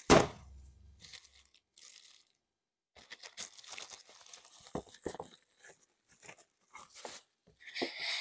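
Packaging being handled for ASMR: a sharp tear right at the start, then crackling, crinkling rustle of the wrapping with a few light knocks on the box.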